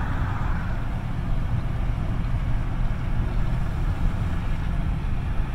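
Steady low road and tyre rumble inside a moving car's cabin.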